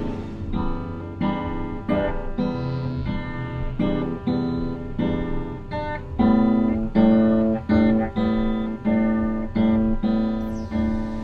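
Guitar strumming chords in a steady rhythm, a little under two strums a second.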